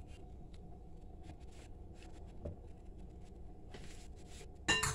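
Low kitchen room hum with a few faint clicks, then near the end a sudden loud clatter of a cooking utensil striking kitchenware, which rings briefly.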